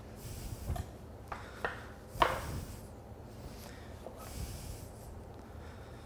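Butcher's string being pulled and knotted around a rolled shoulder of lamb on a plastic cutting board: soft rubbing and handling sounds with a few light clicks, and a sharper tap about two seconds in.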